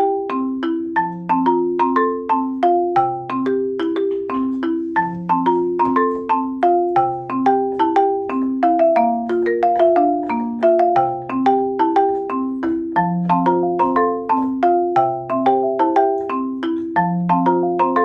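Background music: a bright tune played on mallet percussion like a marimba, quick repeated notes over a low bass note that changes about every two seconds.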